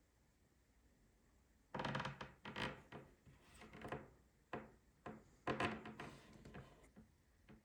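Handling noise from a pair of stainless steel fishing pliers: an irregular run of knocks and scrapes that starts a couple of seconds in.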